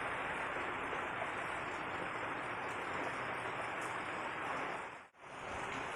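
Heavy rain falling, a steady hiss that drops out abruptly for an instant about five seconds in and then returns.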